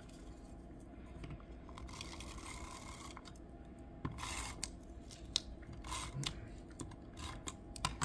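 A Kokuyo DotLiner glue tape runner drawn across a small piece of cardstock, and the paper rubbed and pressed down by fingers on a wooden desk: soft scratchy strokes and small clicks, with a louder scratchy stroke about four seconds in.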